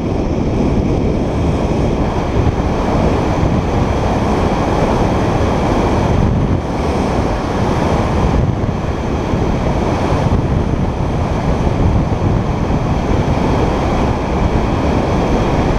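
Wind buffeting a helmet-mounted camera's microphone while skiing downhill, a loud, steady, low rushing, mixed with the hiss of skis sliding on packed snow.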